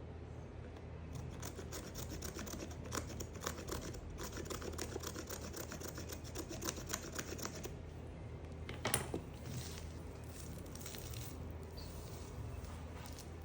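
Knife cutting through a bar of soap: a dense run of small crisp clicks, one louder click about nine seconds in, then sparser, fainter clicks.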